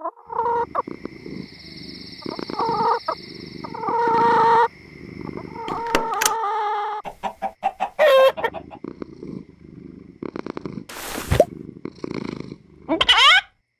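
Hen clucking in strings of short, choppy calls, with a brief loud rushing noise about eleven seconds in and quick rising squawks near the end.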